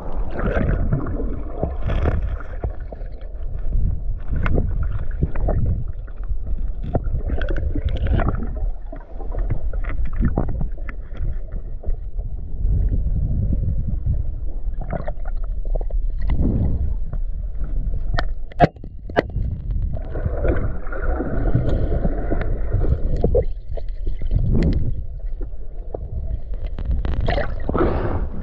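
River water heard from a camera held underwater: a muffled, low rumbling and sloshing with many scattered clicks and knocks.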